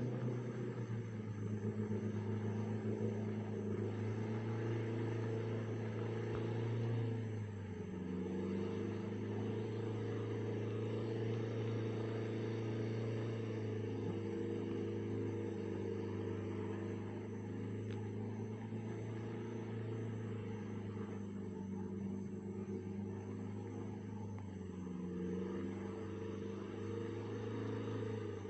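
Vehicle engine running steadily with a low drone, its pitch shifting slightly about a quarter of the way in and again near the end.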